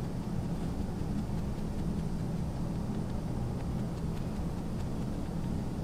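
Steady low background hum, even and unbroken.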